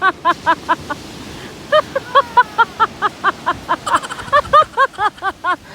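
Seagulls calling in rapid series of short, arching cries, about four or five a second, with a brief pause about a second in; surf washes steadily underneath.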